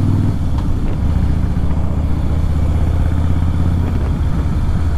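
Harley-Davidson V-twin engine running under way. The engine note shifts about a third of a second in and drops away somewhat near four seconds in.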